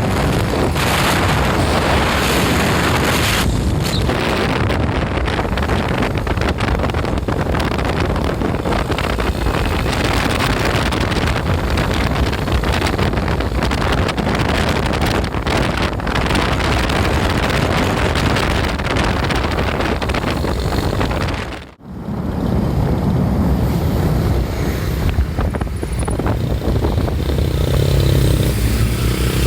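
Wind buffeting the microphone over road and engine noise while travelling with traffic. The sound drops out briefly about 22 seconds in, after which a low, steady engine drone is more prominent.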